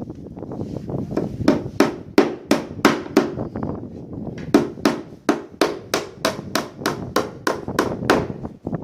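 A carpenter's hammer striking wood in quick, even blows, about three a second, with a short pause midway.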